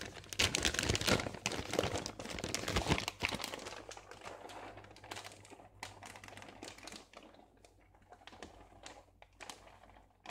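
Plastic packet crinkling and rustling as it is handled. The crackles are dense and loudest for the first few seconds, then thin to scattered light clicks.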